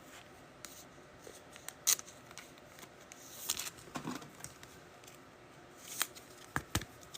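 Trading cards being handled and flipped through from a freshly opened pack: scattered sharp card clicks and snaps, with a brief soft slide of cards about halfway through.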